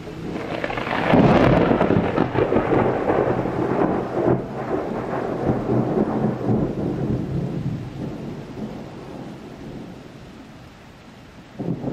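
A loud, dense rumbling noise that swells about a second in, slowly dies away, and swells again briefly near the end.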